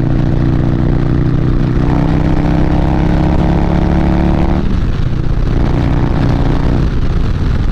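Harley-Davidson Street Bob's Stage 2 cammed Milwaukee-Eight 114 V-twin pulling hard under throttle at highway speed, with steady wind noise over it. The engine note breaks off briefly a little past halfway, picks up again, and eases off near the end.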